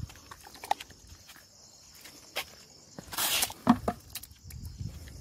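A few light knocks and clicks, then a short loud scrape a little after three seconds in as a steel scoop digs cooked rice out of a plastic bucket.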